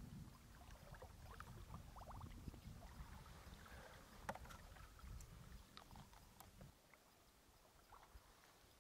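Faint gurgling and small splashes of a plastic bottle filling with water in the shallows at a lake's edge, as short chirps and clicks, over a low rumble that stops about two-thirds of the way through.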